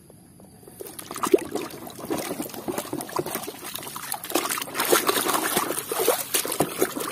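Water splashing and sloshing as a plastic toy fire truck is swished and scrubbed by hand in a tub of muddy water, starting about a second in.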